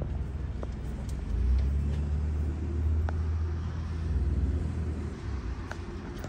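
Low engine rumble of a motor vehicle, which swells about a second in, holds for roughly four seconds and then eases off.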